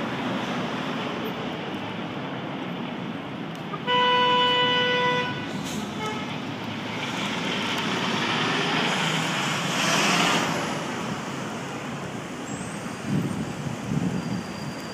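City street traffic running steadily, with a vehicle horn sounding once for about a second, about four seconds in, and a louder vehicle passing around ten seconds in.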